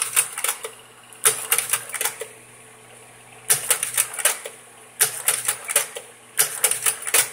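Kodak Carousel 650H slide projector's mechanism clicking and clattering in five short bursts of rapid clicks, over the steady hum of the running projector.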